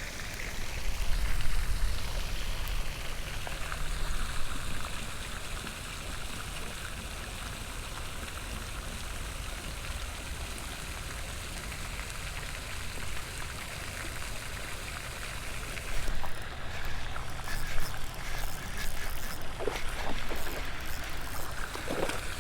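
Pond fountain spray splashing steadily onto the water. A low rumble comes in the first couple of seconds, and some short clicks and rustles come in the last several seconds.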